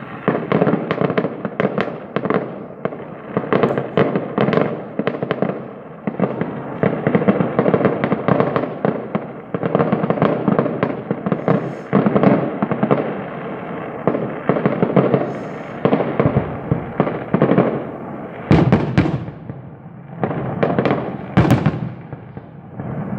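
Fireworks going off in a dense, continuous barrage of bangs and crackling, with a few sharper single reports near the end.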